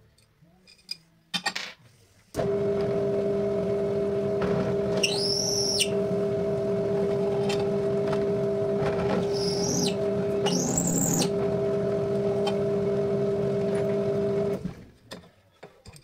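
Bench drill press switched on about two seconds in, its motor running with a steady hum while a countersink bit cuts into an aluminium plate, giving two brief high squeals. The motor is switched off and winds down near the end.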